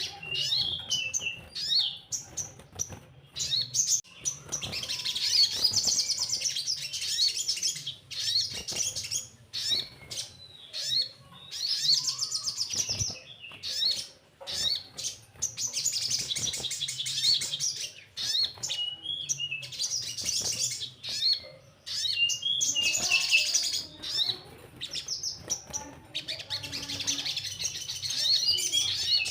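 Crimson sunbird (sogon) singing: high, rapid trilled phrases lasting a couple of seconds each, repeated again and again with short sharp chirps in the gaps between.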